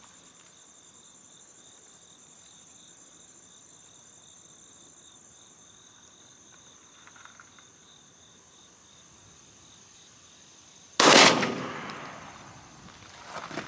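A single shot from a Ruger SR9C 9mm semi-automatic pistol about eleven seconds in: a sharp crack whose echo fades over about a second and a half. Before it there is only a faint, steady high-pitched hum.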